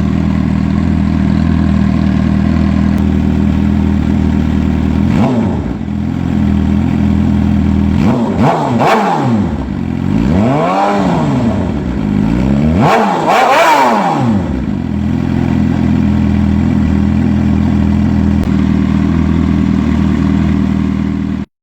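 Suzuki GSX-R750's inline-four engine idling through its exhaust, with a short throttle blip about five seconds in and then two sharp revs, each falling back to idle. The sound cuts off suddenly at the end.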